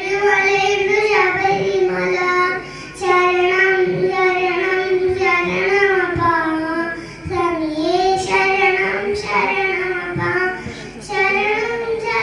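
A single high voice singing, holding long notes that waver in pitch, in phrases with short breaks between them. The voice is said to sound this way because of a cough.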